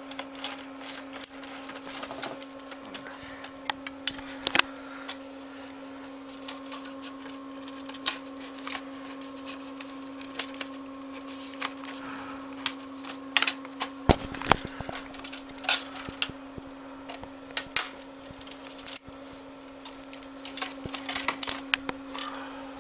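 Irregular clicks and taps from hands working on a laptop, over a steady low hum.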